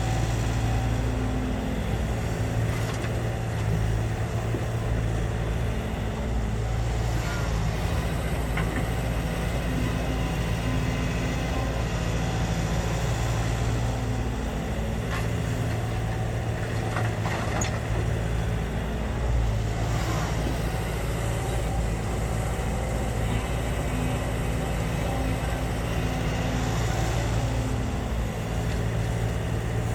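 Sumitomo SH130-6 hydraulic excavator's diesel engine running steadily under working load, its engine note easing and returning as it works. Its hydraulic pump gives little audible whine, which is typical of this quiet-running machine. A few sharp knocks come at intervals.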